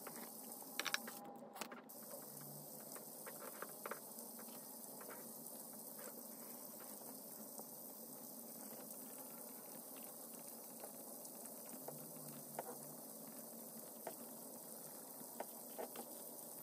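Faint pen scratching on paper and small desk-handling noises over a steady low hiss, with a few sharp clicks about a second in.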